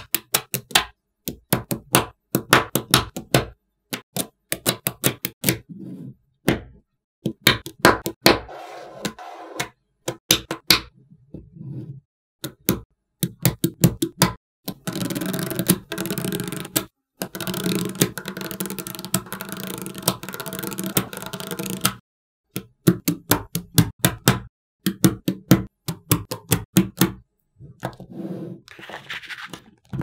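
Small magnetic steel balls clicking and snapping together in quick runs as they are pressed into place. For several seconds in the middle, a long chain of magnet balls being fed onto the structure makes a continuous rattle.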